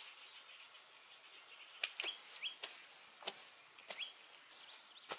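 A digging tool striking into the ground in a steady rhythm, about one blow every two-thirds of a second, starting about two seconds in. Under it runs a steady insect trill, with a few short bird chirps.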